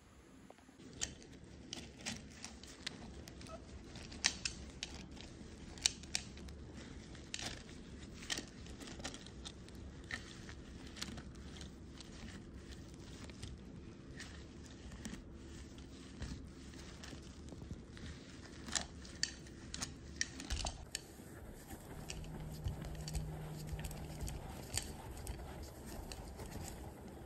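Handling noise from a glass vase being wiped with a microfiber cloth by gloved hands: rubbing with many scattered sharp clicks and taps, over a low steady hum.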